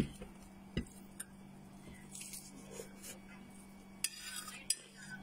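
Scattered light clinks and taps on a plate, with brief rustling handling noise, as roast chicken is pulled apart by hand over a dinner plate. A faint steady low hum runs underneath.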